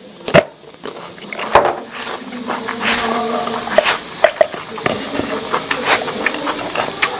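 Close-miked eating sounds: wet chewing and slurping of a mouthful of noodles eaten by hand, crunchy bites of fresh cucumber, and sharp clicks of fingers and food against a metal tray.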